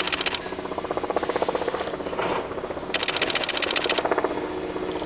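Stainless-steel 7000 series electric train creeping in to stop. It gives a fast, even rattle over a steady hum, with a short burst of hiss at the start and another about three seconds in.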